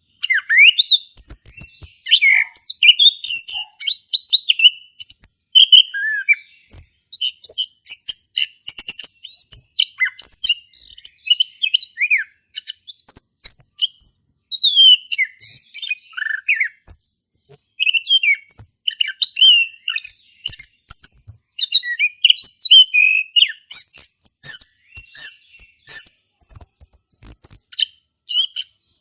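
A male chestnut-capped thrush (anis kembang) in full song: a continuous, varied run of quick high whistles, slurred notes and chattering phrases, broken by short pauses.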